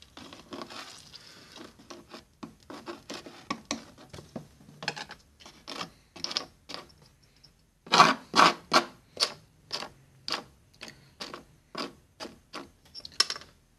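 Short scraping and rubbing strokes of metal on a wooden tabletop as a small strip of solder is worked, about two a second and irregular, loudest a little after the middle.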